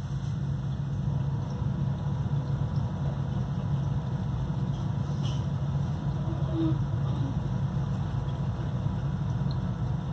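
Steady low mechanical hum with a constant hiss, from running aquarium equipment.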